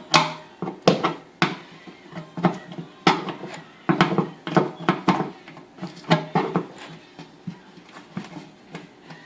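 Clicks, knocks and light clatter of microwave oven parts being pushed and handled: a sharp tap every half second or so, thinning out over the last couple of seconds.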